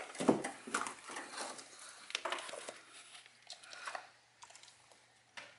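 Scattered light taps and shuffling of a dog moving about and nosing at a steel food bowl on a wooden floor, busiest in the first two seconds and then tailing off.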